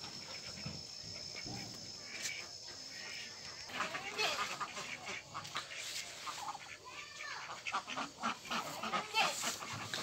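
A flock of domestic ducks quacking, with many short quacks overlapping, much louder and busier from about four seconds in. Before that, a faint steady high whine runs under quieter sounds and stops.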